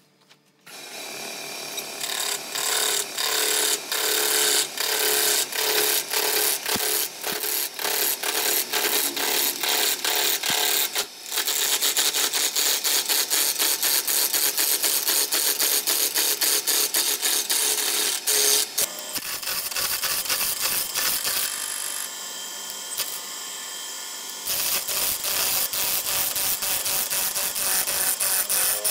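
Wood lathe spinning a square hardwood blank while a hand-held turning tool cuts into its corners, a dense, rapid clatter of knocks as it roughs the blank round. It starts about a second in, eases for a few seconds after the middle, then picks up again.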